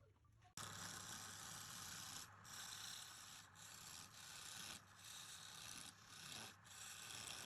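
A tool held against wood spinning on a lathe gives a steady rasping hiss. It starts suddenly about half a second in and breaks off briefly every second or so, over a low, steady motor hum.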